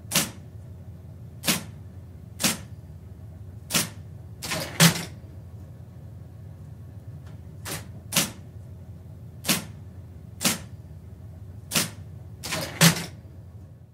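Electric typewriter typed slowly with one finger, heard from about four metres away: about a dozen separate key strikes at uneven intervals of roughly a second, a couple of them close together, over the steady low hum of the machine running.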